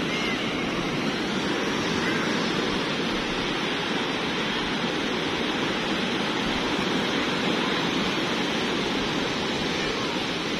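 Sea surf breaking on a sandy beach: a steady, unbroken wash of wave noise.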